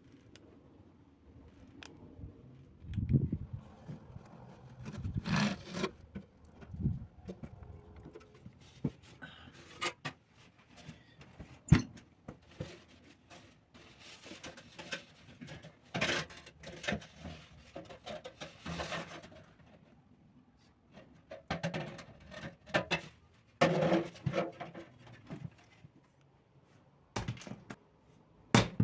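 Intermittent handling sounds: scattered knocks, thunks and scrapes with short pauses between them, and one sharp click about twelve seconds in.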